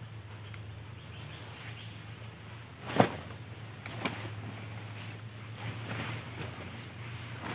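Large black camping tarp being unfurled and shaken out, the fabric giving a loud sharp snap about three seconds in, a smaller snap a second later, and softer rustling after. A steady high insect drone runs underneath.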